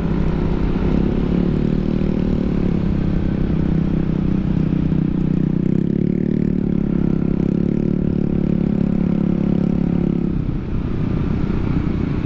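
Yamaha NMAX 155 scooter's single-cylinder engine through a ROB1 Racing aftermarket exhaust, running at a steady throttle while riding, then easing off about ten seconds in.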